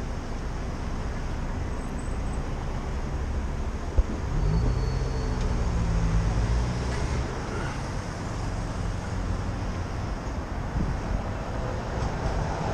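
Steady city street traffic noise with a low rumble. About four seconds in there is a sharp click, followed by a motor vehicle's engine rising in pitch as it pulls away.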